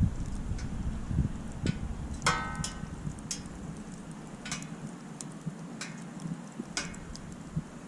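Wood campfire crackling, with scattered sharp pops over a low rumble of burning that eases off in the second half. About two seconds in there is a brief high whistling squeal.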